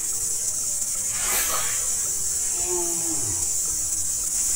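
Steady high-pitched drone of insects in swamp forest, with a brief rushing noise about a second in and a short falling tone near the middle.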